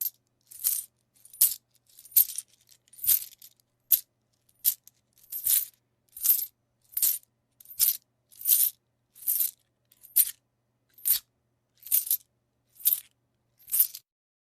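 Coins dropping and clinking as a series of separate short metallic jingles, a little under one a second, with silence between them.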